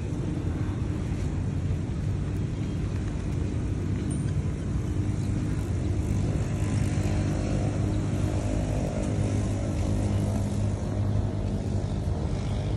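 A motor vehicle's engine running steadily, a low, even rumble that swells slightly in the middle.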